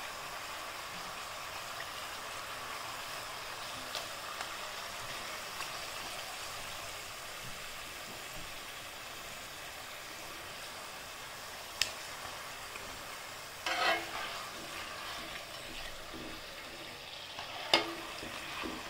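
Tapioca chips sizzling steadily as they deep-fry in hot oil, the chips browning as they near done. A few short clinks of the metal slotted spoon against the pot break in, the clearest about two-thirds of the way through and near the end.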